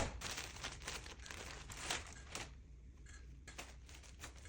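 Packaging crinkling and rustling as newly bought clothes are unwrapped, dense at first and thinning to occasional faint crinkles after about two seconds.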